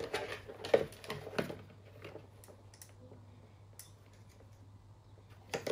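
Hard plastic Dyson cyclone parts knocking and clicking against each other and the bucket as they are handled and dipped into bleach water: a few sharp knocks in the first second and a half, then faint clicks, with a few more knocks near the end.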